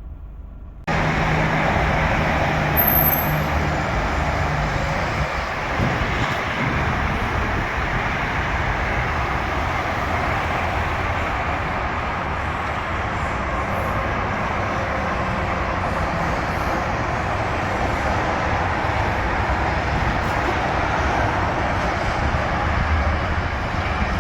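City street traffic: vehicles passing with steady road noise. The sound jumps up about a second in, and a low engine hum is heard in the first few seconds.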